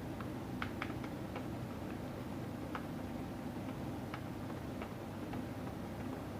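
Typing on a mechanical keyboard with Aliaz silent tactile switches and PBT XDA keycaps: short, irregularly spaced key clicks over a steady low hum.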